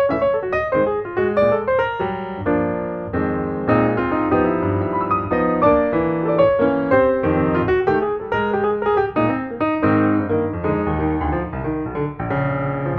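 Background piano music, with a run of quickly struck notes and chords.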